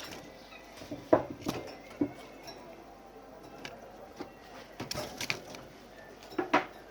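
A few light clinks and knocks of small hard objects, three in the first two seconds and a cluster of them in the last two seconds.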